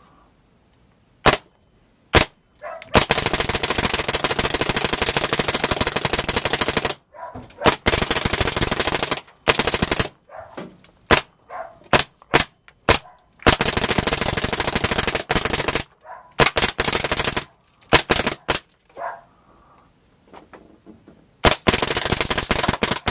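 Planet Eclipse Etek 3 LT electronic paintball marker firing: two single shots, then long rapid-fire strings a few seconds each, broken by short pauses and a few scattered single shots.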